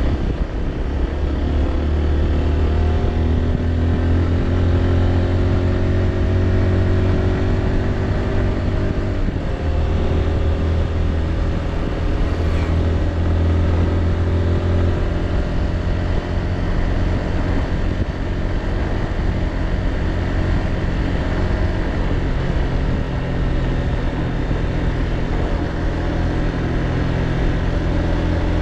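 Small motorbike engine running steadily while riding, heard over wind and road noise; the engine note eases off around nine seconds in, then picks up again.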